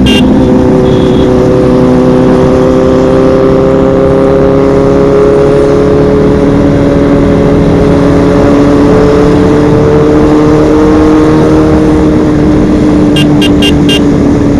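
Sport motorcycle engine running at steady road speed, its note rising slowly in pitch, over a constant rush of noise. A few short ticks come near the end.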